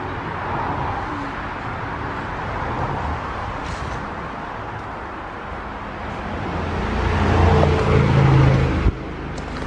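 A motor vehicle's engine, heard over a steady hiss of background noise, grows louder over the last few seconds and then cuts off abruptly near the end.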